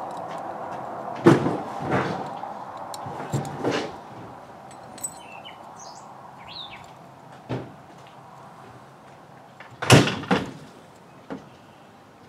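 Metal carburetor parts being handled with needle-nose pliers as the float bowl comes off a Briggs & Stratton carburetor: a handful of separate clinks and knocks, the loudest about ten seconds in. A bird chirps briefly in the middle.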